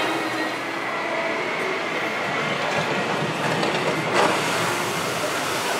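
Shoot-the-chute ride boat running down the drop on its track, a steady rumbling clatter, with a sharp knock about four seconds in as it reaches the bottom of the chute.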